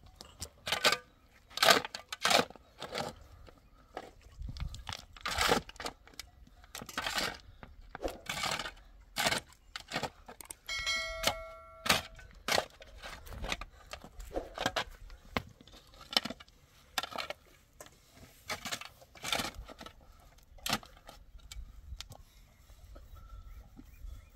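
Shovel digging into stony soil: repeated scraping, crunching strokes about once a second. A brief ringing tone sounds about halfway through.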